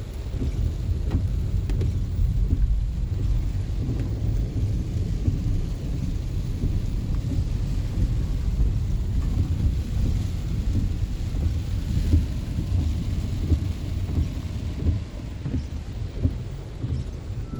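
Steady rain falling, with a strong deep rumble underneath.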